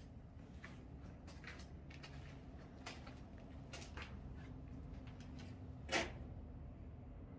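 Footsteps scuffing and crunching on a concrete floor strewn with paint flakes and debris, with one louder crunch about six seconds in, over a faint low steady hum.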